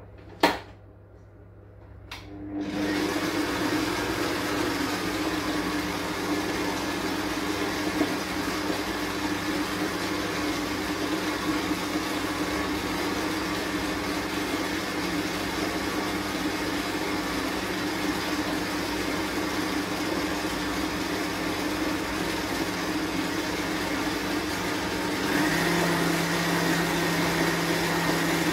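Electric stand mixer beating butter and sugar to a creamy mixture. A sharp click comes first, then about two seconds later the motor starts and runs steadily with a steady hum. Near the end its note shifts and it gets louder.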